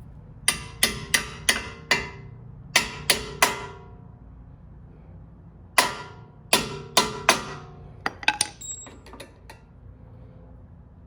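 Hammer taps on metal at a brake caliper, each with a short metallic ring: a group of five, a group of three, then another five, with lighter clicks near the end. This is a part being knocked into place in the caliper.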